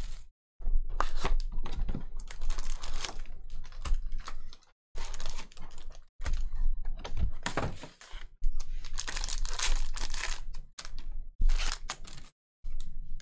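Cardboard hobby box flaps and foil trading-card packs being handled and torn open, with crinkling and tearing in a series of bursts broken by short silent gaps.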